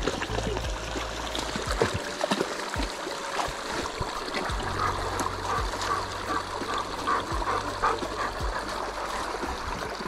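A shallow rocky creek trickling, with two golden retrievers splashing as they wade and drink from it. A low steady rumble runs underneath.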